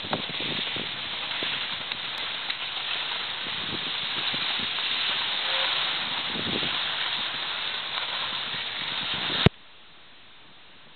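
Steady hiss of skis sliding over packed snow while skiing downhill, with air rushing past the microphone. It cuts off abruptly with a click about nine and a half seconds in.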